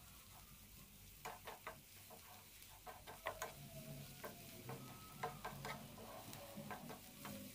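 Wooden spatula scraping and knocking against a nonstick frying pan as grated onion and garlic are stirred in oil: a quiet string of quick, irregular scrapes over a faint sizzle.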